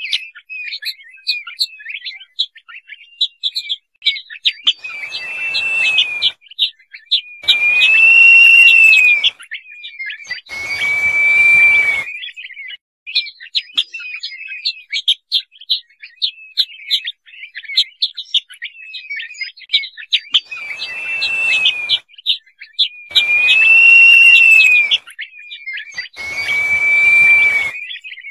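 Crested partridge (roul-roul) calling: a whistled note that rises then falls, repeated in groups of three about three seconds apart, each with a rush of hiss. Many short high chirps run between the whistles.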